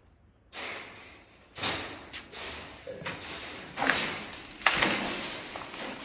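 A series of noisy scrapes and knocks, with the sharpest and loudest knock about three quarters of the way through.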